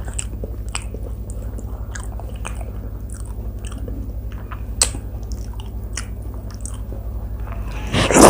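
Close-miked eating sounds: wet chewing and small clicks and smacks as rice and curry are mixed by hand on a steel plate and eaten, over a steady low hum. Near the end a loud burst comes as a handful of food goes into the mouth.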